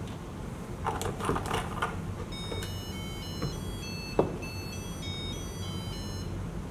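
Rustling and scraping as the board is handled, then an Arduino-driven electronic buzzer plays a quick melody of short, high beeps for about four seconds, set off as a flap on the board is lifted. A single knock sounds partway through the melody.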